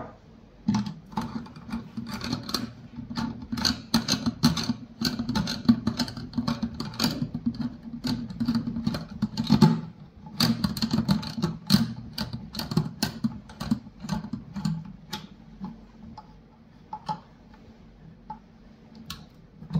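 Screwdriver turning the clamp screw on a pool light's stainless steel face ring: rapid, irregular metal clicking and scraping, busiest over the first two-thirds, then thinning to scattered single clicks.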